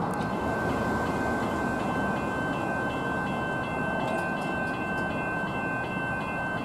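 Railway level crossing warning bell ringing steadily with the boom gates down, warning of an approaching train, over a steady background rush.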